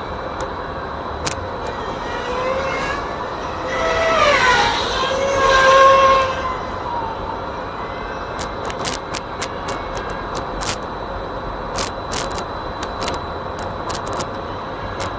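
FPV racing drone's motors and props whining as it flies by, the pitch gliding up and down and loudest about six seconds in, over a steady rushing background. Scattered sharp clicks follow in the second half.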